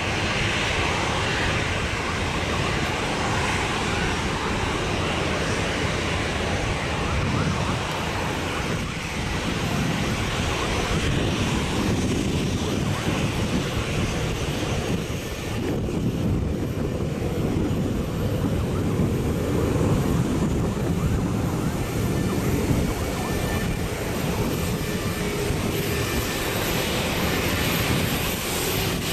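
Boeing 737-800's CFM56-7B jet engines running at taxi power: a steady rumble with hiss above it.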